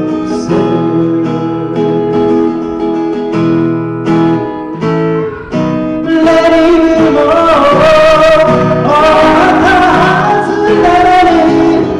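Acoustic guitar strumming chords, with a singing voice that comes in louder about halfway through.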